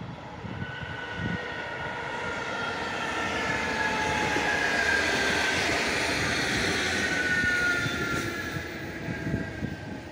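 Electric passenger multiple unit passing close by, its wheel and running noise swelling to a peak midway and then fading. Several whining tones slowly fall in pitch as it goes past.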